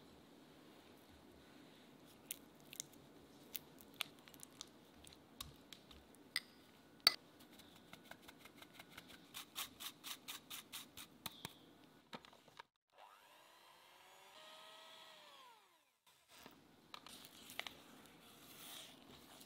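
Silicone spatula working soft cream cheese in a glass bowl, with scattered clicks against the glass. Partway through comes a run of quick, even taps, about four a second, as a fine-mesh sieve of powdered sugar is tapped. Then a squeak whose pitch rises and falls, and soft stirring.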